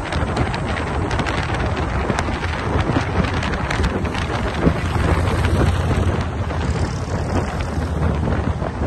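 Wind rushing over the microphone at highway speed, over the low, steady drone of a group of Harley-Davidson V-twin motorcycles riding together.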